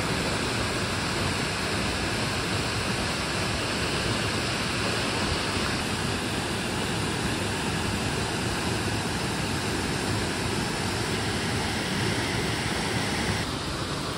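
Waterfall pouring into a rocky pool and creek: a steady, even rush of falling water that turns a little quieter about a second before the end.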